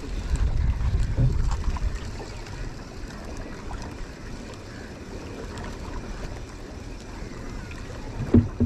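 Wind buffeting the microphone, strongest for the first couple of seconds, over a steady wash of water around a small boat at sea. A single sharp knock near the end.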